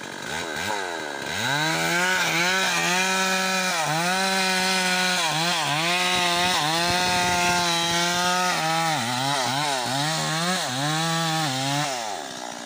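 Stihl chainsaw revving up from idle and cutting into a teak trunk at full throttle, its pitch dipping several times as it cuts. Near the end it drops back to idle.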